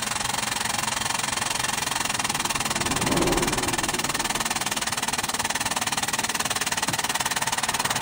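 An engine idling steadily, with a brief louder swell about three seconds in.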